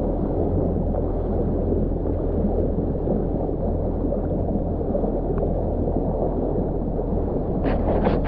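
2019 Yamaha GP1800R SVHO personal watercraft's supercharged 1.8-litre four-stroke engine running at low, steady speed, with water gurgling around the hull. A few short, sharp sounds come near the end.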